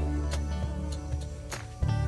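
Background music with a steady bass line and light percussive ticks.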